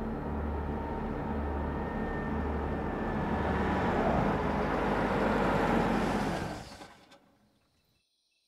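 An oncoming car approaching head-on, its engine and road noise swelling over a low throb that pulses about once a second, then dropping away sharply. Faint crickets chirping remain near the end.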